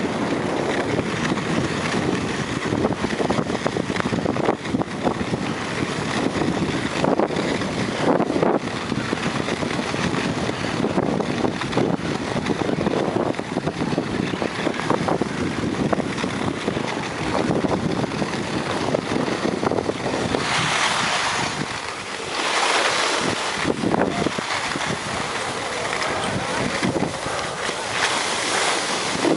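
Skis running over groomed snow with wind rushing on the microphone during a downhill run, a steady hiss. Several louder hissing scrapes come in the last third, the last as the skier slows to a stop.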